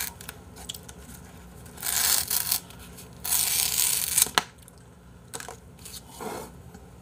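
Plastic wrap being torn and peeled off a bowl, in two crackly bursts, followed by a sharp click.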